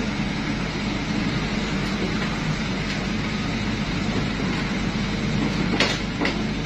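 Excavator running with a steady diesel drone, and two sharp knocks in quick succession near the end.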